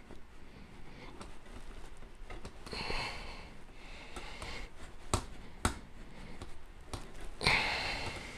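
Quiet handling of a saxophone's brass body, with a few light clicks and two audible breaths.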